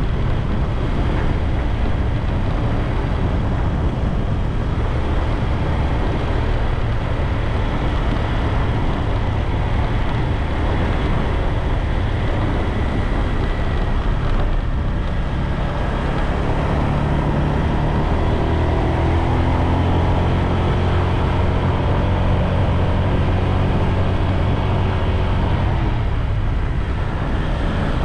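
Motorbike engine running steadily under way, mixed with wind rushing over the microphone. From about the middle the engine's low note gets stronger and steadier.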